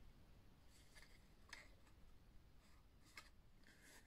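Near silence with a few faint rustles and soft taps of card stock being folded and pressed together by hand as a small glued paper box is assembled.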